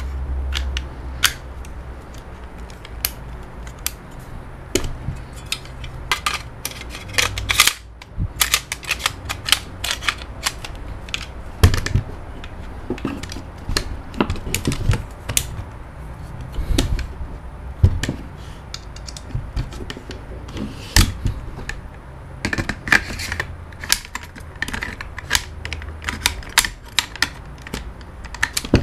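Irregular clicks, clacks and knocks of a WE MSK gas blowback airsoft rifle's parts being handled and taken apart, pieces knocking together and set down on the bench, over a low steady hum.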